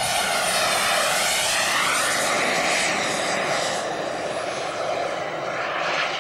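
Radio-controlled model jet flying a fast pass: a loud rushing jet whine that swells about a second in, holds strong for a few seconds, then eases off as it draws away, its pitch sweeping as it goes by.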